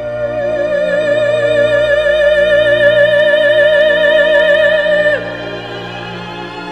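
Classical background music: one long, high note held with a wide vibrato over sustained lower accompaniment, dropping away about five seconds in.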